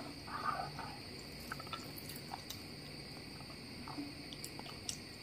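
Faint, scattered ticks and soft rustles of fingers mixing biryani rice on a plate, over a steady faint high-pitched hum.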